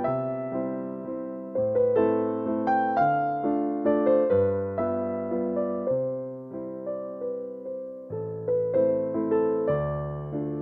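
Background piano music: a gentle melody of struck notes that ring out and fade, in a steady rhythm.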